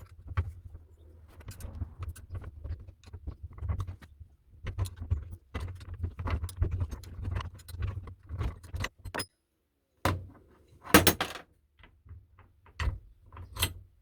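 Clinking, scraping and knocking of a rusty steel pipe wrench being handled and worked on, with a steady low hum under the first nine seconds that stops suddenly. A few louder metal clanks come about eleven seconds in.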